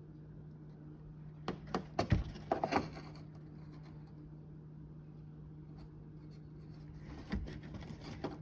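Clicks and knocks of hands handling wiring and parts, in a cluster about one and a half to three seconds in and a few more near the end, over a steady low hum.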